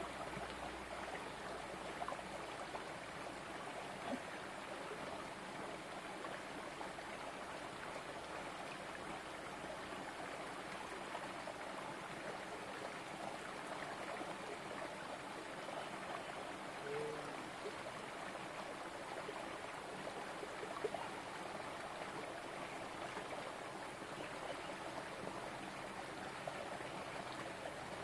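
Small, shallow rocky stream running and trickling steadily over stones, with a few faint ticks.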